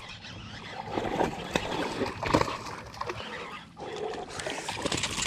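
A hooked bass splashing and thrashing at the water surface as it is fought to the bank, mixed with irregular knocks and rustles, the loudest about two and a half seconds in.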